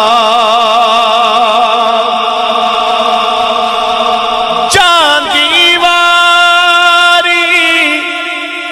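A man singing a Punjabi Sufi kalam, holding a long note with a wide, even vibrato. About five seconds in he moves into a new phrase that slides down in pitch and settles on a steady held note, which grows softer near the end.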